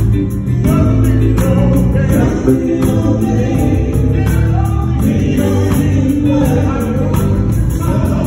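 Live gospel singing by a small vocal group, a man and women singing together over a bass-heavy instrumental backing, amplified through a PA system.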